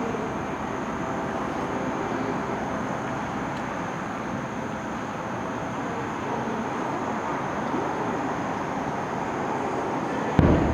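Steady outdoor hubbub from a large open-air fireworks crowd, then one loud, deep boom of a firework shell bursting near the end.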